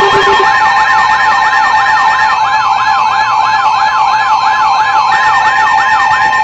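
Emergency Alert System attention signal on a radio broadcast: the steady two-note alert tone with a wailing siren sweep mixed over it, rising and falling about three times a second.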